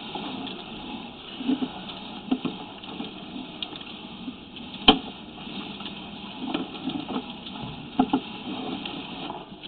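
Sewer inspection camera's push cable being pulled back by hand: scattered clicks and soft knocks over a steady hiss, with one sharp click about five seconds in.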